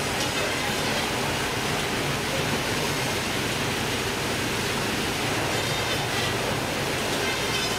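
Fish-processing line running: steady rushing machine noise from the stainless-steel machinery and plastic conveyor belt, with a low hum underneath.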